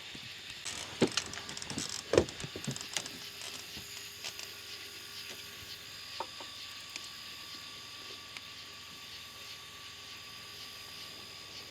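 Fishing gear being handled: several sharp clicks and knocks in the first three seconds, then only a faint steady high-pitched drone in the background.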